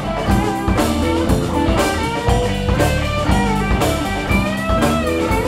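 Alt-country rock band playing live: guitars over bass guitar and drums, with a guitar playing bending notes.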